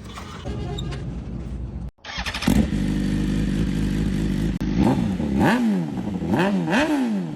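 An engine running, cut off abruptly about two seconds in and resuming louder, then revved in three quick blips, its pitch rising and falling each time, as its exhaust sound is demonstrated.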